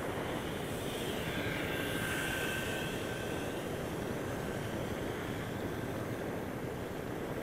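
Whine of a radio-controlled glider's electric motor and propeller, swelling as it passes between about one and three seconds in, over a steady rushing hiss.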